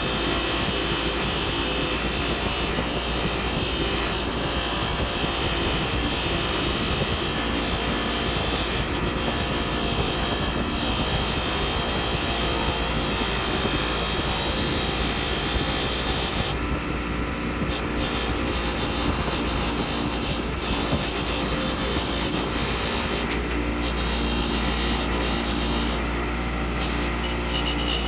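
Bench grinder running steadily while a rusty steel rod is held against its spinning wheel to strip off surface rust. The grinding sound changes briefly a few times as the rod is shifted on the wheel.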